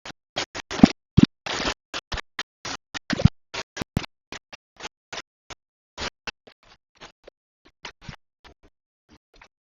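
An irregular run of short scratching, scraping noises, dense and loud for the first four seconds, then sparser and fainter.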